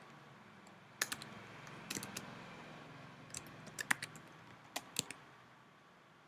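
Computer keyboard keys clicking in scattered single strokes and small clusters at irregular intervals, not continuous typing.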